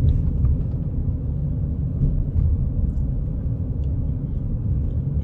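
Steady low road rumble inside the cabin of a moving car, from tyres and engine while driving.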